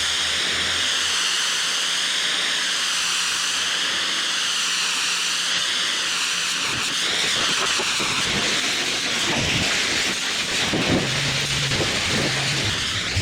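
Pressure washer spray hissing steadily against the manure tank and pump, its tone wavering as the wand moves. From about nine seconds in it turns spattery, with a low hum underneath.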